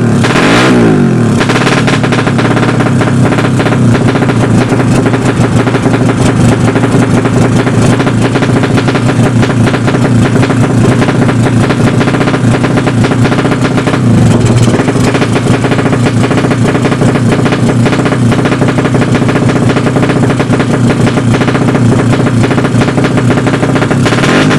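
Drag-tuned motorcycle engine with an open exhaust held at high revs, firing in a rapid, rattling stream. The pitch climbs in the first second, then holds steady, with a brief dip about halfway through.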